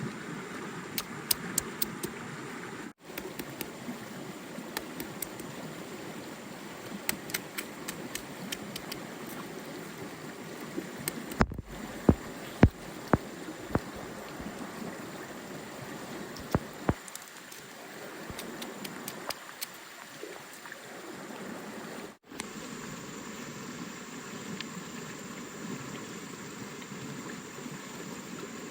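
Stream water running steadily, with scattered sharp clicks and a few louder knocks about halfway through. The sound breaks off for an instant three times.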